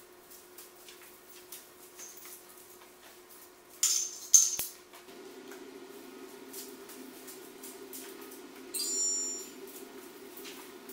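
Loose magnetic tape from unravelled VHS cassettes crinkling and clicking, with two louder crackly rattles about four seconds in and a short high-pitched squeak near the end. A steady low hum starts about five seconds in.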